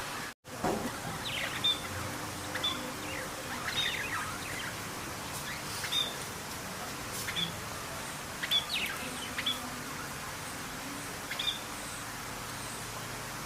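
Small pet birds chirping in short, sharp calls, scattered irregularly over a steady background hiss. The sound drops out briefly about half a second in.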